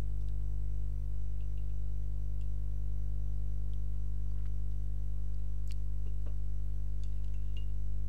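Steady electrical mains hum with a buzzing ladder of overtones picked up by the recording microphone, and a few faint clicks in the second half.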